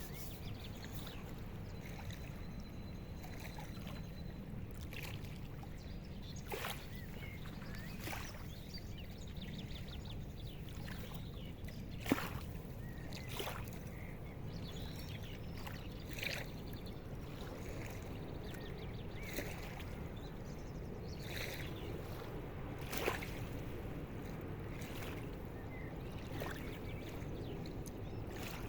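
Low steady drone of a river boat's engine passing on the water, with scattered short sharp clicks on top, the loudest about twelve seconds in.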